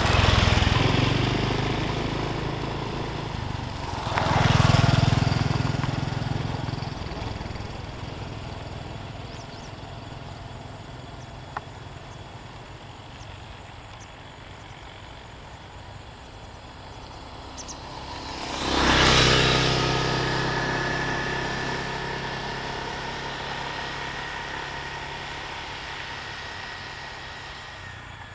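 Small motor scooters passing close one after another: one right at the start, one about five seconds in and one near nineteen seconds. Each engine note swells as the scooter passes and slowly fades as it rides off.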